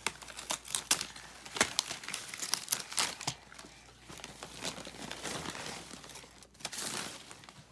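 Wrapping paper and toy packaging crinkling and rustling in irregular crackles as a toddler handles and pulls at a boxed toy.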